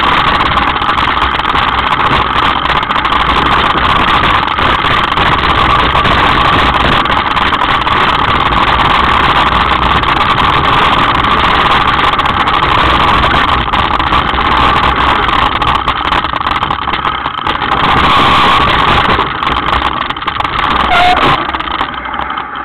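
Steady, loud rushing and rattling from a hardtail mountain bike descending a rough stony track: wind buffeting the bike-mounted camera's microphone, mixed with the frame and tyres juddering over loose stones.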